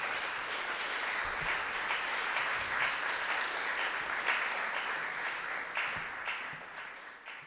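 Audience applauding steadily, a dense patter of many hands clapping, dying away near the end.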